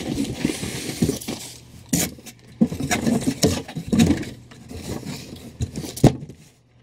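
Hands opening a HeroClix figure pack: rustling and scraping of cardboard and plastic packaging, broken by several sharp clicks and knocks.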